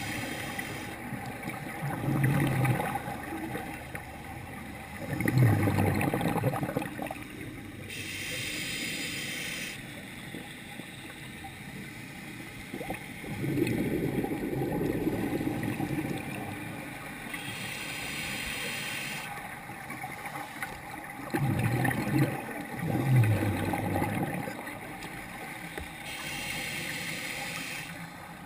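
Scuba breathing through a regulator underwater: three hissing inhales through the demand valve, about nine seconds apart, with low rumbling, gurgling bursts of exhaled bubbles between them.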